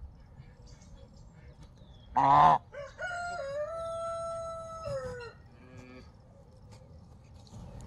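A rooster crowing: one long call held on a steady pitch that drops away at the end. Just before it, about two seconds in, comes a short, harsh and much louder call.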